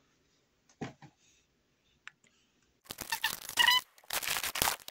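Hand handling of the disc repair machine and disc: two light clicks about a second in, then from about three seconds on a loud stretch of plastic rubbing and clattering with brief squeaks.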